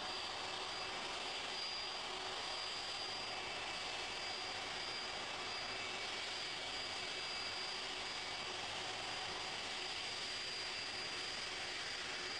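Boeing 747's four jet engines running at taxi power: a steady rushing hiss with a thin high whine held on one pitch.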